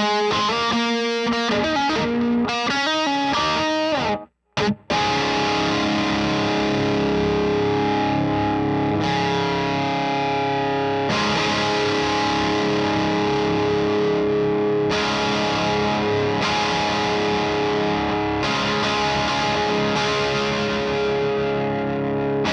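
Electric guitar, a Gibson Les Paul Tribute with P90 pickups, played through an Acorn Amplifiers AFKK Klon-style overdrive pedal into a Satellite Neutron amp. A quick picked single-note riff stops briefly about four seconds in. Overdriven chords follow, left to ring and changing every few seconds.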